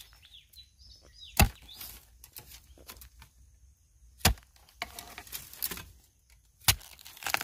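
Metal digging blade chopping into soil and roots to dig out a wild bamboo shoot: about four sharp strikes a couple of seconds apart, with faint scraping of earth and dry litter between them.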